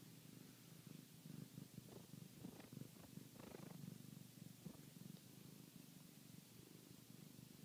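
Mother cat purring steadily, a low, faint rhythmic purr. Scattered soft clicks and rustles are heard over it during the first five seconds or so.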